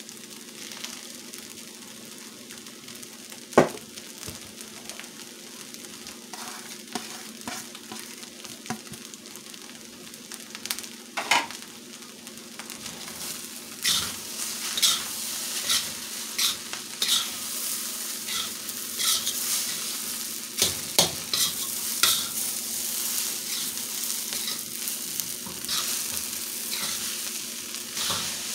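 Egg fried rice sizzling in a steel wok over a gas flame while a metal spatula stirs and tosses it, scraping and clacking against the pan. About halfway through the stirring speeds up: the sizzle gets louder and the sharp clacks come thick and fast.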